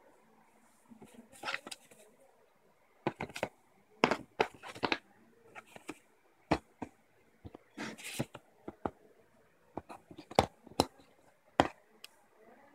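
Hands handling a cardboard product box and its inner tray: irregular clicks and taps with a few short rustles and scrapes of cardboard and paper as the accessories are lifted out.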